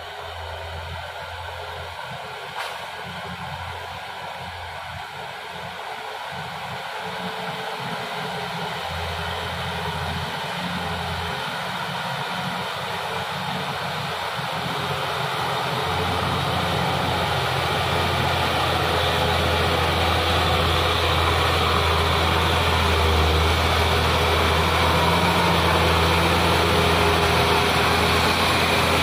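Hino 500 FM 260 JD dump truck's six-cylinder diesel engine pulling steadily up a slick mud climb. It grows steadily louder as the truck comes close and passes by.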